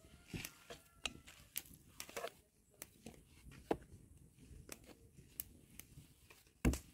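Irregular small clicks, taps and rustles of food being handled and prepared by hand, with one louder knock near the end.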